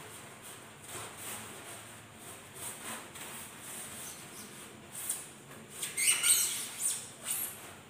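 A blade being drawn through a sheet of Styrofoam, making a scratchy, rasping sound in short strokes. The strokes come faster and louder from about six seconds in.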